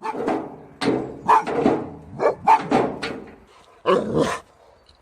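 A dog barking, a string of short barks with a brief pause about three seconds in.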